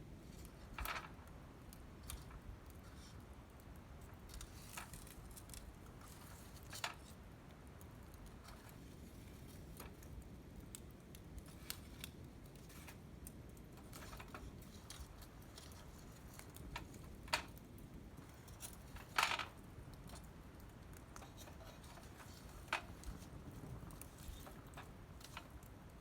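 Wood fire burning with a soft low rush and sparse crackles, a few sharper pops standing out now and then.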